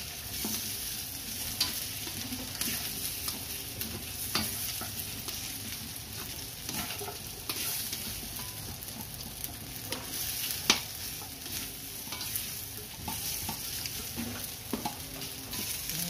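Pre-fried chicken, carrot and potato pieces sizzling in oil in a stainless steel wok while being stirred with a slotted spatula: a steady sizzle with frequent scrapes and knocks of the spatula on the pan, one sharper knock about two-thirds of the way through.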